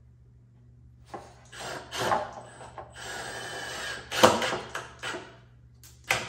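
Cordless drill driving a screw through a plywood jig into plywood, running in short spurts with a steadier run of about a second, amid wood scraping. There is a sharp knock a little past four seconds in.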